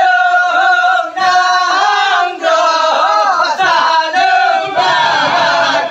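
Male voices chanting a Seudati song unaccompanied, several singing together. Near the end the singing thickens into a denser group chant.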